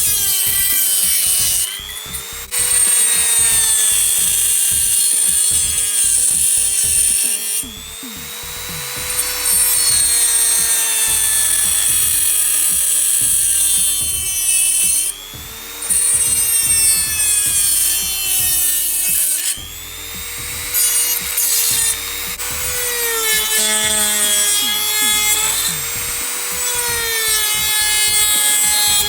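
Makute DG002 mini die grinder running at high speed and working material, with a hissing grinding noise. Its whine sags in pitch under load and climbs back each time the load eases, and the hiss drops out briefly a few times as the tool is lifted off.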